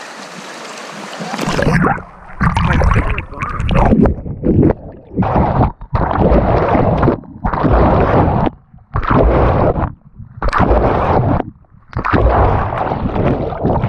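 Water rushing steadily, then splashing and sloshing hard against the camera in repeated surges, one every second or so, as it moves in and out of the river's surface while someone wades and swims across.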